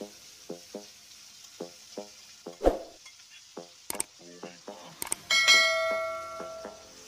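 Seasoning paste of tomato, shallot, garlic and chili frying in a wok, sizzling with many small pops, with a single knock near the middle. About five seconds in, two clicks and a ringing bell chime from a subscribe-button animation, fading over a second or so.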